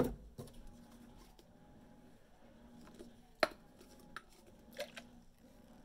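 A few sharp clicks and knocks of plastic containers being handled on a table, one at the very start and another about three and a half seconds in, over a faint steady hum.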